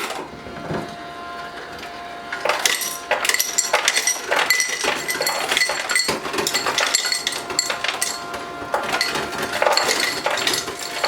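Ice cubes clattering out of a GE side-by-side refrigerator's door dispenser, pushed out by the auger and its motor, which hums steadily underneath. The dense clinking starts about two and a half seconds in and shows the new auger drive cam and motor are now turning the auger and delivering ice.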